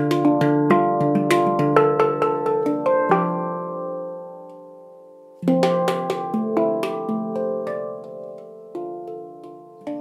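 Handpan tuned to a D Kurd scale, played with the hands: a quick rhythmic run of struck notes that stops about three seconds in and lets the notes ring and fade. A loud note about five seconds in starts a sparser phrase of single strikes.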